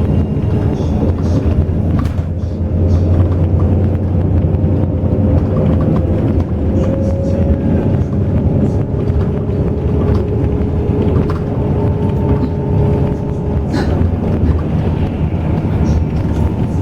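Intercity bus under way: steady engine and road rumble, with a faint whine that holds nearly one pitch.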